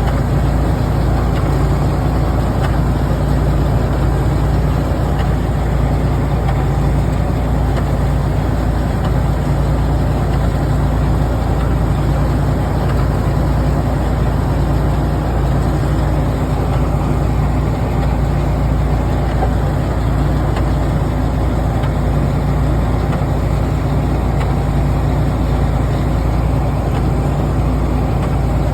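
Engine running steadily, driving an International Harvester 55-W hay baler as it bales straw.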